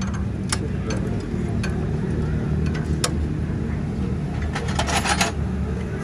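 Tractor engine idling steadily, with sharp metallic clinks now and then and a quick run of them about five seconds in.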